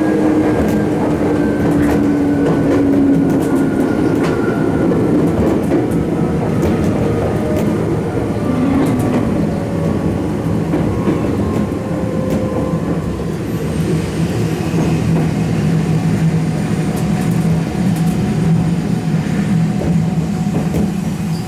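Ex-Tokyu 8500 series electric train running, heard from inside the passenger car: a steady rumble of wheels on rail with motor hum. A faint tone falls slowly in pitch over the first few seconds.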